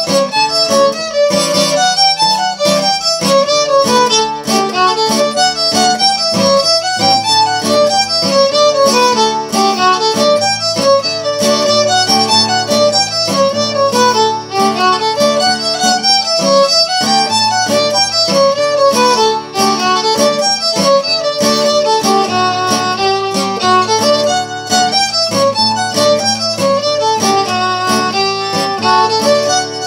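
Fiddle and acoustic guitar duet playing a jig: a quick, continuous fiddle melody over steadily strummed rhythm guitar.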